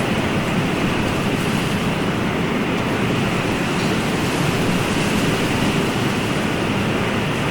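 Ocean surf: a steady, even wash of water noise with no distinct swells rising and falling.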